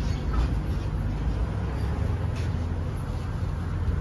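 Steady low rumble of an engine or motor running, with faint rustling now and then.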